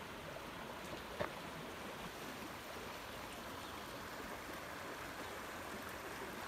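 Steady, even outdoor background hiss with one faint knock about a second in.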